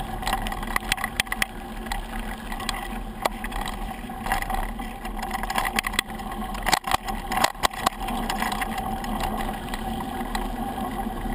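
Mountain bike rolling fast down a dirt trail, heard from a handlebar-mounted camera: a steady rush of tyre and wind noise, with sharp rattles and knocks as the bike goes over bumps, most of them in a burst about seven seconds in.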